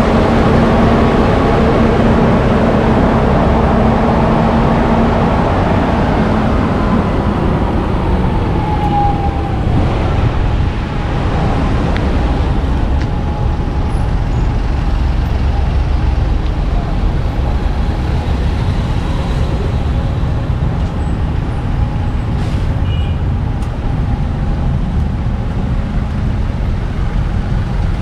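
Road traffic: cars, trucks and buses running and passing, a continuous loud rumble. A steady engine hum in the first few seconds fades out as a vehicle moves away.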